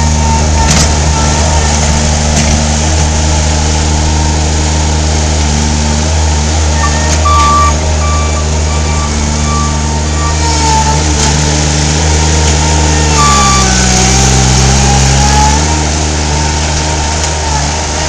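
Mini skid steer engine running steadily; about three-quarters of the way in its pitch sags for a couple of seconds, then comes back up. A run of short high beeps sounds about a third of the way in.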